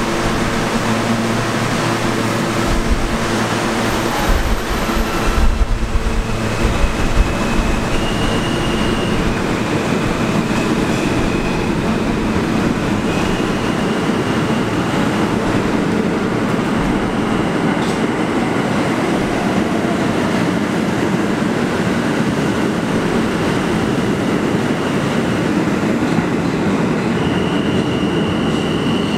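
New York City Subway R160 trains running through an underground station: a loud, steady rumble of cars on the rails. High-pitched wheel squeal tones come and go from about eight seconds in, and a few low thumps sound in the first several seconds.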